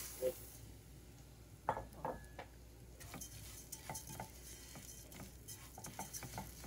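Dry raw rice poured into a nonstick pot of hot oil and garlic with a short hiss at the start, then a plastic spoon stirring and scraping the grains, with light clicks against the stone-coated pot as the rice is toasted before cooking.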